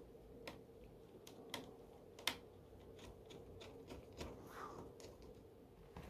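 Faint, scattered clicks and taps of plastic laptop screen parts being handled during an LCD panel swap, the sharpest a little past two seconds in, with a brief soft rustle near the end.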